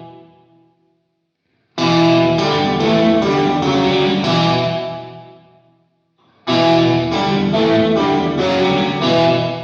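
Electric guitar played through a TC Electronic Skysurfer Mini reverb pedal: two phrases of repeated strummed chords, about two and six and a half seconds in, each ringing out in a reverb tail that fades away.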